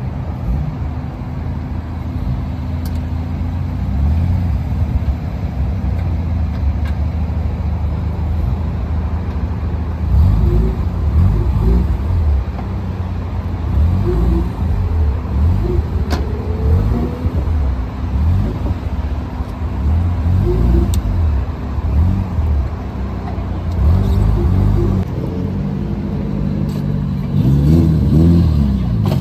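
Car engines idling with a low rumble. From about ten seconds in, short revs rise and fall in pitch, growing louder near the end.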